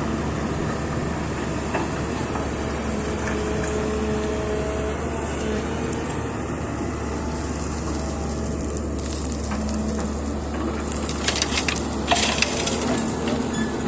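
Excavator's engine running steadily with a low drone, with a cluster of sharp knocks and rattles near the end.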